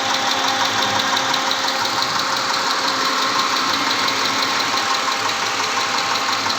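Mitsubishi 6G74 V6 gasoline engine running with a steady, rapid ticking knock, which the mechanic suspects comes from valve lifters stuck by heavily sludged, very dirty oil.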